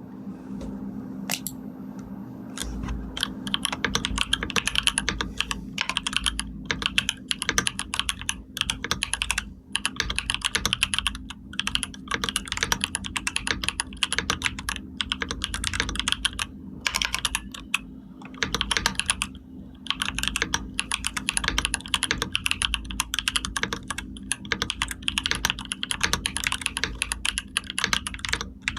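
Computer keyboard being typed on: a few scattered key clicks, then fast, continuous runs of keystrokes broken by a few short pauses, over a steady low hum.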